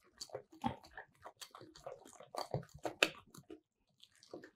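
Kitchen utensils handled while making cupcake batter: a rapid, irregular run of small clicks, taps and scrapes, then a pause and a few last taps near the end.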